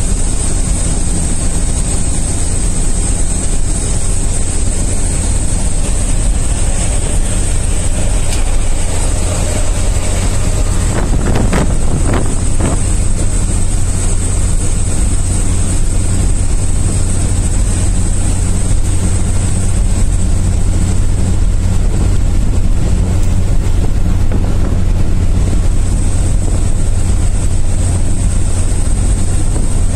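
Steady engine and road noise heard from inside a vehicle's cab travelling fast on a highway: a strong low rumble under a constant high hiss.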